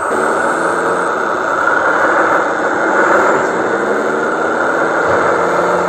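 Radio-controlled model dump truck running with a steady mechanical whine as its tipper bed lifts under a load of soil.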